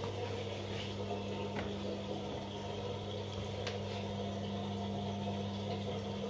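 Korting KWM 47T1480 front-loading washing machine running its spin program: a steady low hum with a watery noise of the drain pump emptying the drum.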